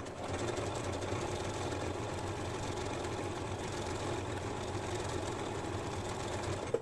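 Janome Memory Craft 6700P computerised sewing machine running steadily, stitching a selected decorative stitch pattern, then stopping suddenly near the end.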